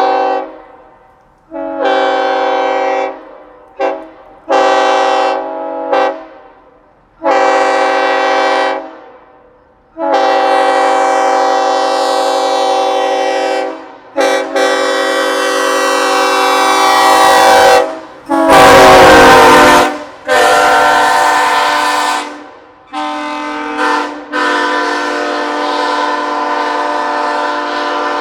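Nathan AirChime K5HL five-chime train horn on a truck, sounding its chord in a string of blasts. The first blasts are short, one to two seconds each, followed by longer held blasts of up to about four seconds. Around two-thirds of the way through comes one louder, harsher blast that wavers in pitch.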